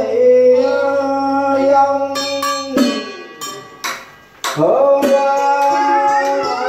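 Live instrumental music on a plucked string instrument, playing a slow melody of long held notes. About three seconds in it thins out to a few sharp plucks, then the melody picks up again about a second and a half later.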